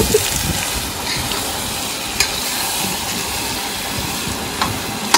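Chicken pieces sizzling as they fry in oil in a metal kadhai, stirred with a metal spoon; a steady hiss with a few sharp clicks, about two and four and a half seconds in and again at the end.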